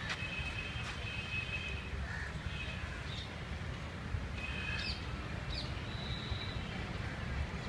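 Birds calling now and then, short high chirps and brief whistled notes, over a steady low rumble.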